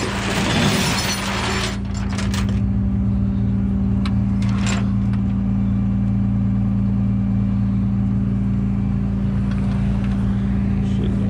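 Rollback tow truck's engine idling steadily with an even hum. A rushing noise fills the first two seconds, and two sharp clicks come about four seconds in.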